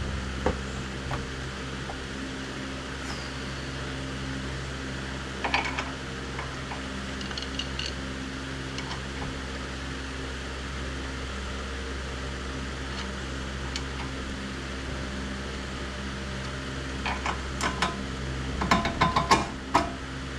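Scattered metallic clicks and clinks of hand tools working a bolt into a Jeep's rear suspension knuckle, a few early on and a quick run of them near the end, over a steady mechanical hum.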